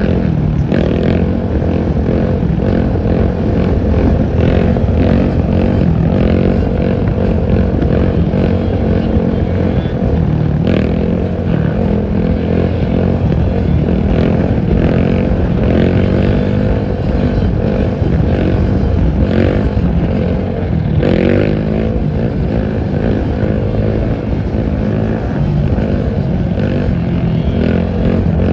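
Engines running at road speed during a quad wheelie ride: a sport quad (ATV) and the vehicle following it, the engine pitch rising and falling with the throttle.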